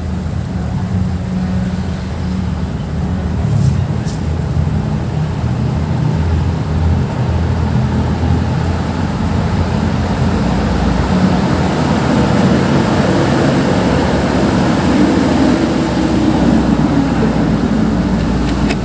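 An engine running steadily: a low droning hum with a rumble that grows a little stronger in the last few seconds.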